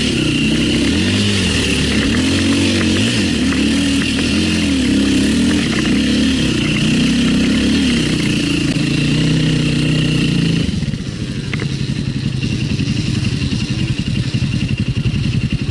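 Enduro dirt bike engine revving up and down repeatedly under load. About eleven seconds in, the revs drop and it runs on at low rpm with an even pulse.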